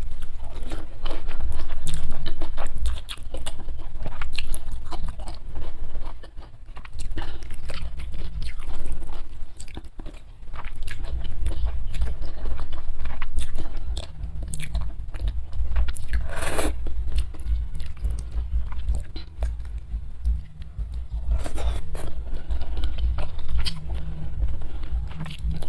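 Close-miked chewing and biting of food, with many short sharp crunches from crisp sides such as kerupuk crackers and cucumber. The loudest crunch comes a little past the middle, with another a few seconds later.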